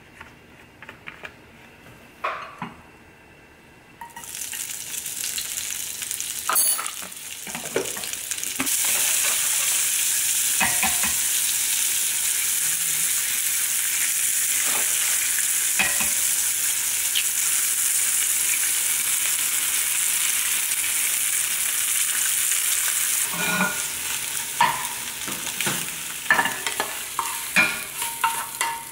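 Zucchini, bell peppers and egg sizzling in hot oil in a frying pan. The sizzle starts about four seconds in and stays loud and steady. Near the end a spatula knocks and scrapes in the pan as the food is stirred and scooped out.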